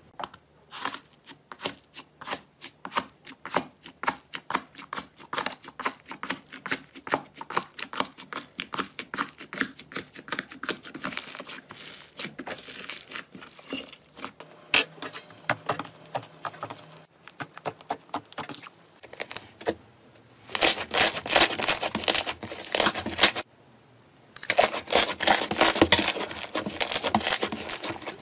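Hands squishing and stretching slime: a run of popping clicks, a few a second. About twenty seconds in, two stretches of loud, dense crackling follow as slime is pressed and kneaded.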